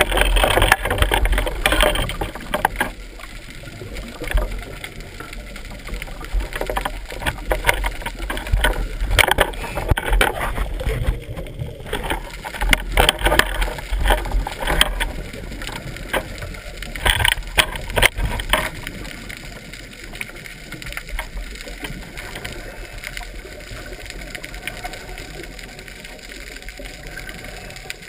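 Underwater noise heard through a GoPro's waterproof housing: a muffled rushing with irregular louder bursts of crackling through the first two thirds, then steadier and a little quieter.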